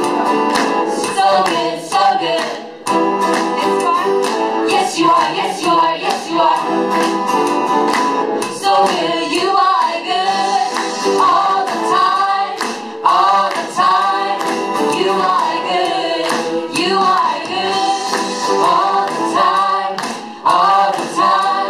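A worship team of men's and women's voices singing a praise song together through microphones.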